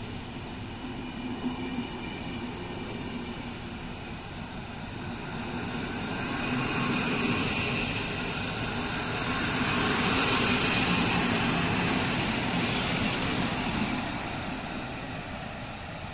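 A passenger train with an EP07 electric locomotive rolls slowly past while shunting, with steady wheel-on-rail rumble and running noise. The sound swells to its loudest about ten seconds in as the locomotive passes, then fades as it moves away.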